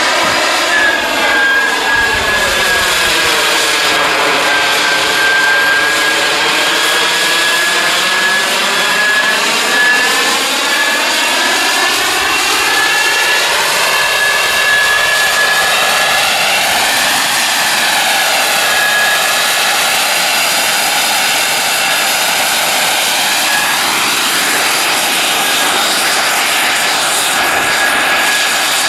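Model jet's turbine engine running at high power with a steady high-pitched whistle over a rushing roar, the tone sweeping and phasing as the jet climbs and hangs tail-down in a hover.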